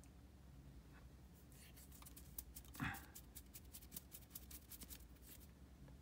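Near silence: faint room hum with a short rustle about three seconds in and a run of small, faint ticks from light handling.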